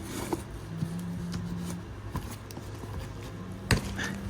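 A cardboard shipping box being handled and opened by hand: scattered light knocks and rustles, with one sharper knock near the end, over a steady low hum.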